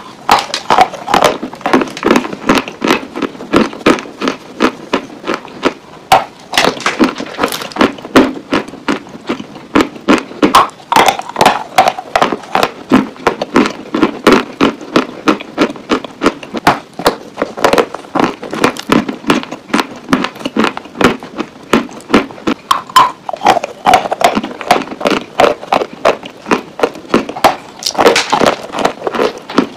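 Dry Turkestan white clay being bitten and chewed: a dense run of sharp, dry crunches and cracks, several each second, with louder clusters each time a fresh piece is bitten off, five or so times.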